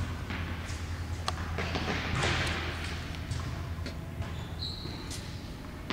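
Scattered sharp knocks of tennis balls bouncing and being hit, over a steady low hum in a large indoor tennis hall.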